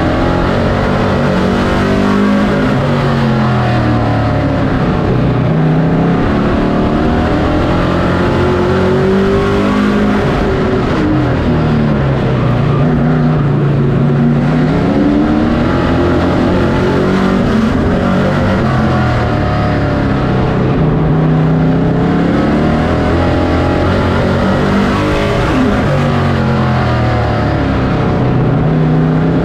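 Race truck's engine heard from inside the cockpit under racing load. The revs climb along the straightaways and fall back for the turns, in a cycle about every ten seconds.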